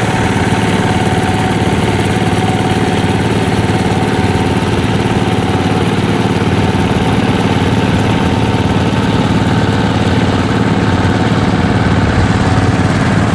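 Kubota rice combine harvester's diesel engine running steadily under load as it cuts and threshes rice.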